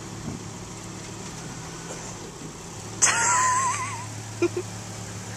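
Car engine idling with a steady low hum. About three seconds in, a sudden loud rush of noise carries a wavering squeal for about a second, and two short knocks follow near the end.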